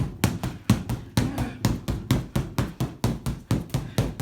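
Rapid, continuous punches landing on a punching bag, about five hits a second, in an unbroken flurry.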